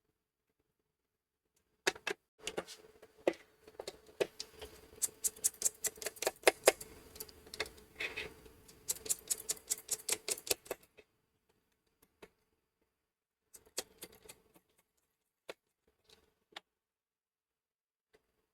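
Irregular clicking and tapping of small hard plastic and metal parts being handled and pried apart in a teardown. The clicks come thick and fast for several seconds, then only a few scattered ones.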